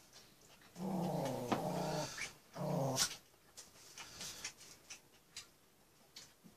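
Two low, drawn-out vocal sounds, the first about a second long and the second shorter, among light clicks from chopsticks and eating.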